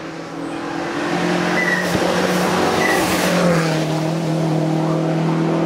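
Lancia Delta Integrale rally car's turbocharged four-cylinder engine running hard as it drives past through a bend, loudest about three seconds in. Two short tyre chirps come about two seconds in.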